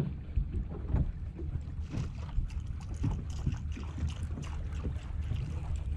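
Wind buffeting the microphone in a steady low rumble, with water lapping and slapping against a small boat's hull in many short knocks.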